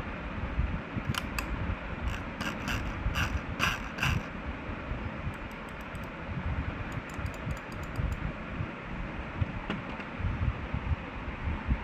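Sharp clicks from a Logitech G502 Hero gaming mouse, coming in short runs: a few about a second in, a quicker string between two and four seconds in, and another string around seven to eight seconds in. A steady low rumble runs underneath.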